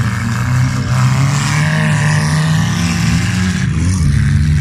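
Engines of old wreck-race cars running hard and revving, their pitch rising and falling as they race around a dirt track.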